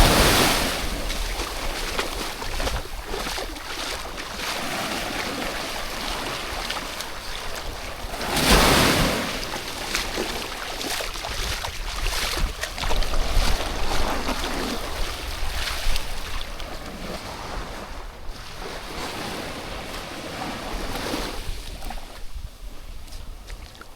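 Sea waves breaking and washing up a sand beach, with two louder breaks, one at the start and another about eight seconds in. Wind buffets the microphone throughout.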